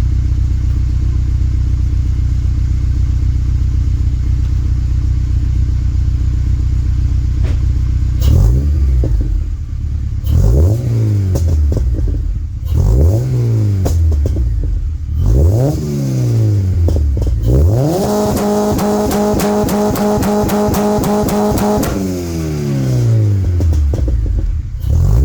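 Honda Civic Si's 2.0-litre four-cylinder K20 engine breathing through a Skunk2 Alpha header and straight 3-inch race exhaust: steady idle, then four sharp rev blips, then held at a fixed rpm against the two-step launch limiter with a rapid stutter for about four seconds before dropping back and blipping once more.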